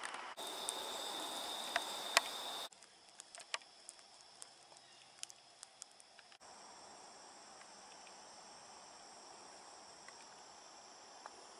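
Faint woodland ambience with a steady high insect drone and scattered small clicks. The background changes abruptly three times.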